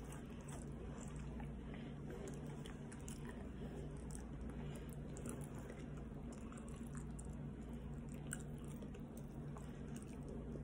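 A person chewing a mouthful of pizza close to the microphone, with small wet mouth clicks throughout.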